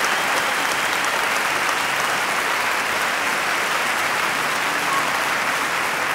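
Steady applause from a crowd, many hands clapping together.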